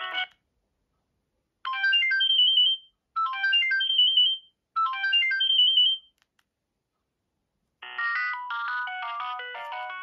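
Philips 162 mobile phone playing its built-in ringtones. One tune cuts off at the start; after a short silence a brief rising phrase ending on a quick high trill plays three times. After a pause of about two seconds a different, busier tune begins near the end.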